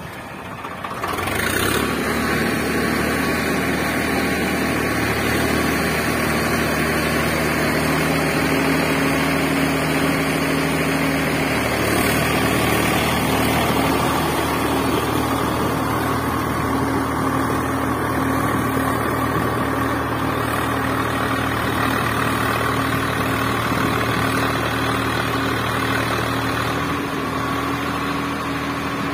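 A steady engine-idling sound that comes in about a second and a half in and holds evenly, its tone shifting a little about twelve seconds in.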